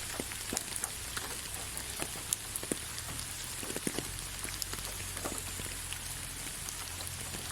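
Steady rain falling on leaves: an even hiss with scattered individual drops ticking sharply.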